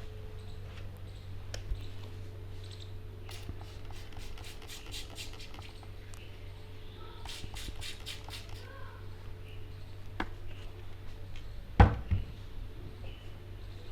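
Hands working over a head and hair in a barber's head massage: soft rubbing with scattered small clicks and taps, then one sharp loud smack or crack near the end.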